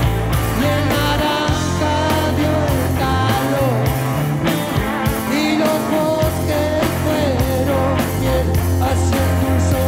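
Live rock band playing an instrumental passage: electric guitar, electric bass and drum kit, with a lead melody of bending, gliding notes over sustained bass notes.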